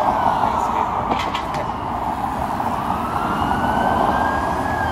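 Emergency vehicle siren wailing in slow falling and rising sweeps over steady street traffic noise.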